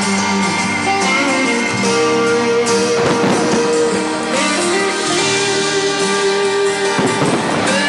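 Pop music playing, an instrumental passage carried by guitar, with no singing.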